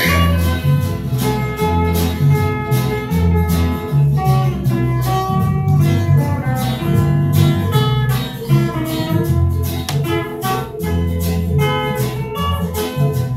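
Several acoustic guitars strummed and picked together in an instrumental passage, over low notes that change every second or so.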